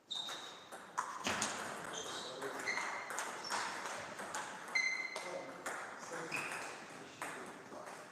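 Table tennis ball in a rally, sharp clicks of ball on bats and table about every half second to second, several with a brief high ping.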